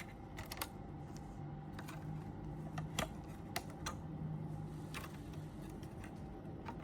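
Batteries being pulled out of the plastic battery holder of an Apollo Xpander heat sensor: a handful of light, scattered clicks and rattles, over a faint steady hum.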